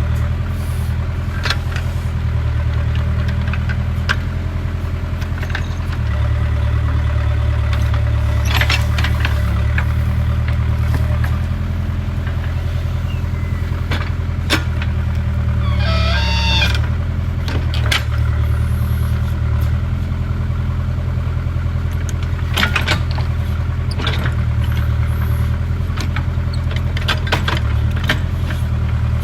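Backhoe loader's diesel engine running steadily, its note swelling and easing as it is worked, with several short clanks along the way.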